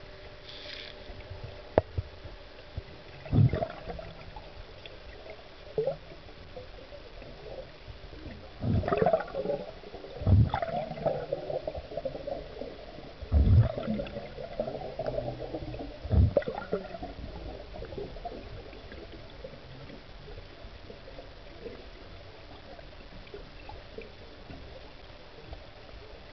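Underwater sound of a diver and gear: several dull knocks, with gurgling bubbles through the middle stretch. A faint steady hum lies underneath.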